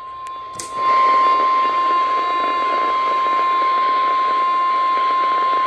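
NOAA Weather Radio 1050 Hz warning alarm tone: one long, steady, single-pitched tone over radio hiss, growing louder about a second in. It signals that a warning message is about to be read.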